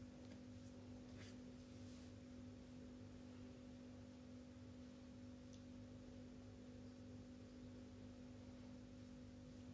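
Near silence: a faint steady electrical hum in the recording, with a few faint clicks.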